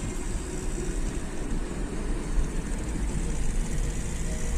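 A car driving along a hilly road: steady engine and tyre noise with a low rumble.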